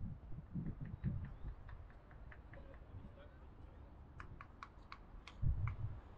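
A series of light, sharp clicks, scattered at first and then a quick run of about six about four seconds in, with a few dull low thumps near the start and the end.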